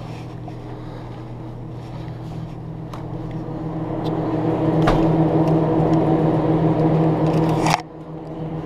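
Steady machine hum of refrigerated drink coolers, growing louder as the camera nears the glass doors, with a couple of faint clicks. The hum drops off suddenly with a sharp click near the end.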